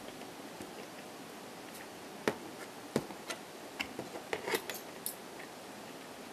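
A person chewing a mouthful of salami pizza, with a run of sharp, crunchy clicks from about two seconds in to about five seconds in over a steady room hiss.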